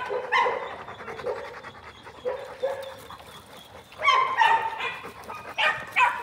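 Labrador retrievers barking in short calls: one bark just after the start, a few quieter ones in the middle, and a burst of several barks in the last two seconds.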